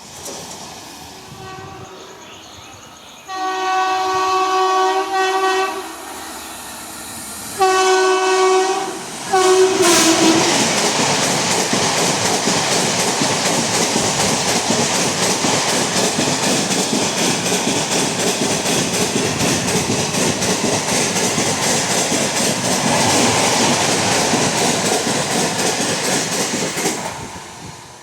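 A WAP-7 electric locomotive's low-toned, shrill horn sounds three blasts: two long ones and then a short one. The train then passes at speed with a steady rapid clickety-clack of wheels over the rail joints, which fades away near the end.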